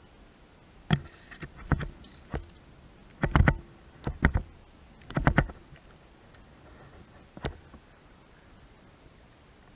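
A series of sharp, irregular knocks and clunks, some coming in quick twos and threes, over about seven seconds, the last a single knock near the end.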